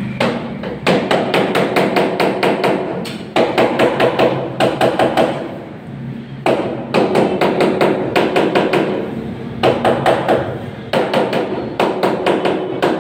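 Rapid tapping on a freshly laid floor tile to bed it level in its mortar, about five or six strikes a second in runs of one to three seconds with short pauses between. Each strike leaves a brief ringing from the tile.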